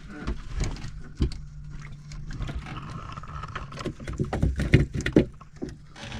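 Fishing handline hauled in hand over hand over the side of a wooden outrigger boat, with a hooked fish on it that he calls fairly big. Irregular knocks and rubbing of line and hands against the boat's boards sound over a steady low hum.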